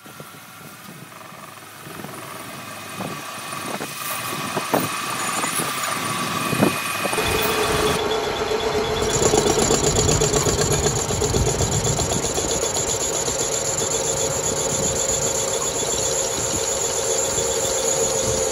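Metal-cutting lathe turning a forged steel truck axle spindle, its tool peeling off steel swarf. Sharp ticks of chips come in the first half, then the machine's running grows louder and steady, with a high cutting whine.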